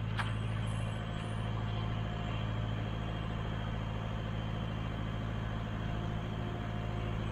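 New Holland skid steer's diesel engine idling steadily.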